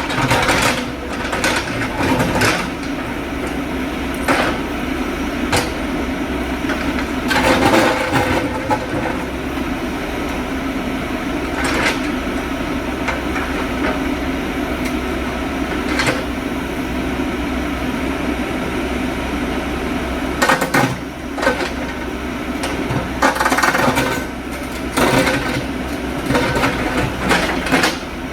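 JCB backhoe loader's diesel engine running steadily under load, with sharp metallic clanks and knocks at irregular intervals, several of them in clusters near the middle and the end.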